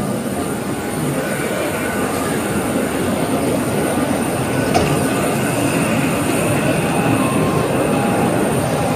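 Steady, loud rumbling noise of aircraft and ground equipment running on an airport apron beside a jet bridge, with a thin high whine over it.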